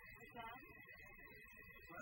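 Near silence: a faint background with a steady high-pitched tone running through it and a brief faint sound about half a second in.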